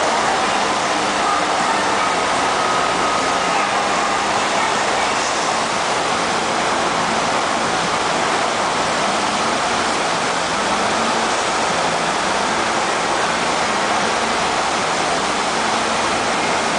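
FlowRider surf simulator's thin sheet of high-speed pumped water rushing up its wave surface, a loud, steady roar of water.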